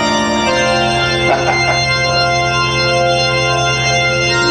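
Organ holding long sustained chords, with the chord changing near the end, a slow, funeral-home sort of sound.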